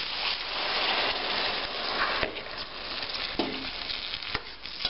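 White vinegar poured into a hot pan of sautéed Brussels sprouts and onions, hissing and sizzling as it hits the hot metal. The sizzle eases after about two seconds, leaving a lighter sizzle with a few sharp clicks.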